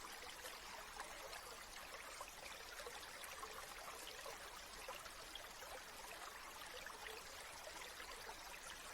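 A small stream trickling and babbling gently and steadily, with many little splashes and droplet sounds.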